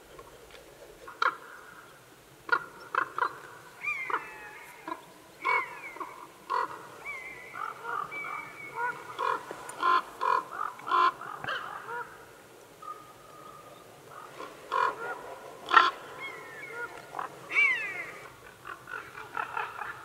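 Corvids calling around a carcass: many short, harsh croaking calls at an irregular pace, mixed with a few quick gliding notes. The loudest calls come about ten and sixteen seconds in.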